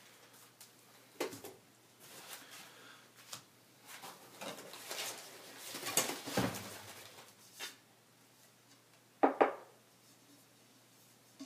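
Hands unpacking a cardboard shipping box: crumpled packing paper and plastic wrap rustling as parts are lifted out and set down. Two short, louder sounds come close together about nine seconds in.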